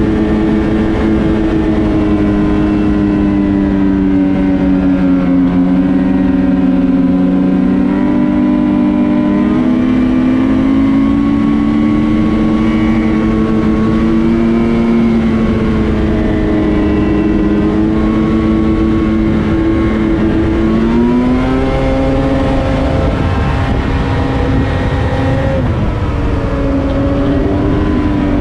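Ski-Doo Renegade XRS 850's two-stroke twin engine running hard on the trail, its pitch sagging and climbing several times as the throttle eases off and opens up again, with a rushing noise of wind and track underneath.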